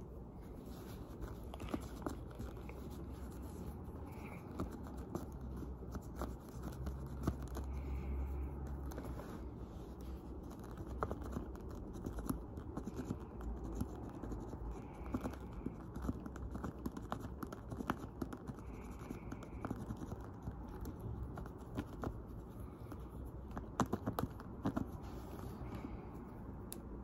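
Light scratching and rubbing with many small scattered clicks: a handbag's brass zipper hardware being handled and scrubbed with a cotton swab to clean off dirt and tarnish.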